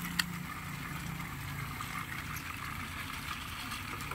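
Battery-powered toy train running on plastic track, its small electric motor giving a steady hum. One sharp plastic click sounds just after the start.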